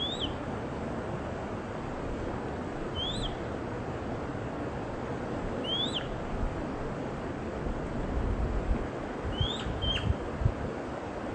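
A bird giving short, sharp chirps that rise and fall, one about every three seconds, four in all, with a brief steady note just after the last. Behind them is a steady rushing of wind, with low buffeting on the microphone near the end.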